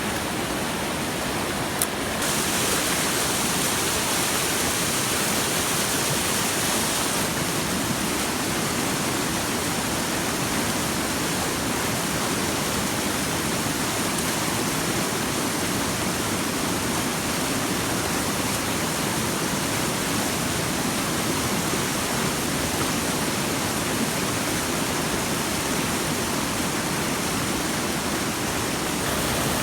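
Steady rushing noise of running water, like a stream or waterfall, with a single short click about two seconds in.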